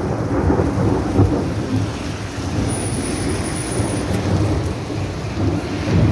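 Gusty wind buffeting the microphone with an uneven low rumble, over a steady hiss of heavy rain.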